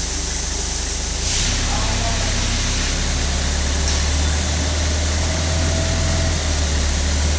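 Komatsu forklift engine running steadily under load; about a second in it grows louder and stays up as the forklift works the fuel tank into place.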